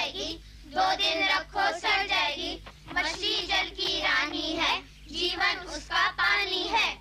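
A child singing in a high voice with wavering pitch, in three long phrases separated by short breaks.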